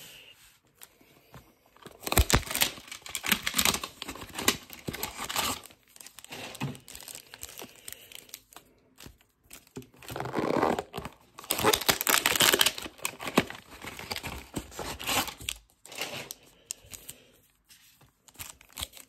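Cardboard hanger boxes of baseball cards being torn open, and the wrapped card packs inside crinkling as they are pulled out and handled. The tearing and rustling comes in two main spells, starting about two seconds in and again about ten seconds in.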